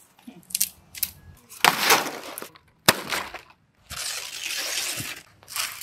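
Dry branches snapped by hand: several sharp cracks, with stretches of crackling and rustling twigs between them.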